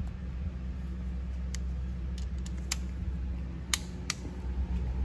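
Click-type torque wrench giving a few sharp, separate clicks as the PCV valve bolts reach their 9 Nm setting, over a steady low hum.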